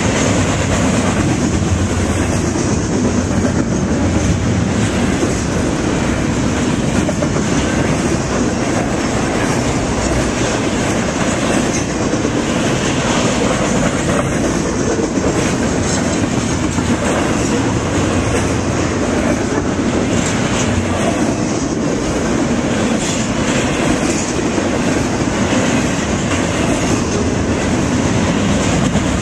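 Double-stack intermodal freight train's loaded well cars rolling past close by: a steady, loud rolling noise of steel wheels on the rails with scattered wheel clicks.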